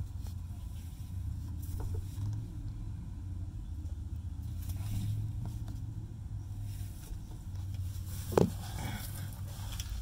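PVC drain pipe being pushed and worked into a rubber grommet: faint scraping and handling over a low steady rumble, with one sharp knock about eight seconds in.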